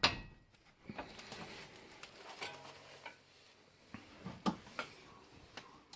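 A hammer blow on a wrench at the start, hitting a seized caliper bracket bolt to break it loose, then a fairly quiet stretch with a few light metallic clinks of the tools against the brake parts.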